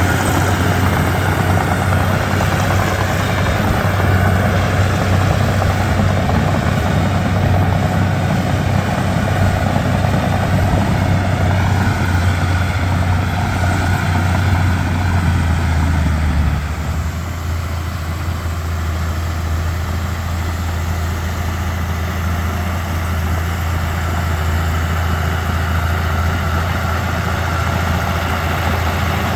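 Komatsu D31P bulldozer's diesel engine running with a steady low drone, easing to a slightly quieter, lower-loaded note a little past halfway.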